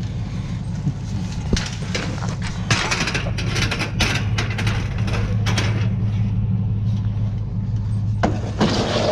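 Scrap metal patio chairs and chain-link fencing clattering, scraping and knocking as they are handled and loaded onto a pickup bed, busiest from about a second and a half in to about six seconds. A steady low engine hum runs underneath, typical of the pickup idling.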